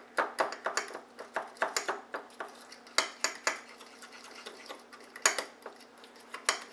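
A fork clinking and scraping against a small ceramic bowl as it stirs butter, egg and flax meal into a batter: irregular taps, a few a second, with a short lull about four seconds in.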